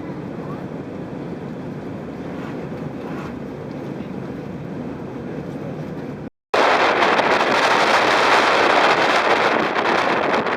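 Steady low rumble, like a vehicle running. After a sudden brief cut about six seconds in, loud rushing wind noise on the microphone.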